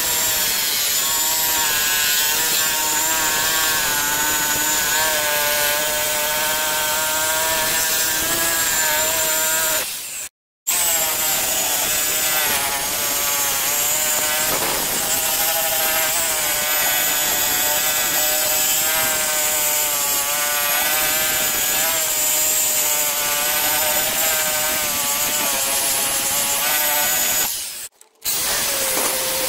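Angle grinder with a sanding disc grinding rust off a steel cleaver blade: a loud, steady motor whine over abrasive hiss, its pitch wavering as the disc bears down. The sound cuts out briefly about ten seconds in and again near the end.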